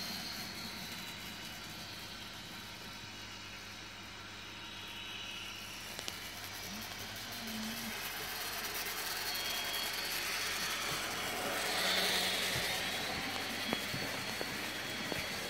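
N-scale model train running on the layout track: a steady whirr from the small locomotive motor and the wheels on the rails, with a few faint clicks. It swells louder near the end.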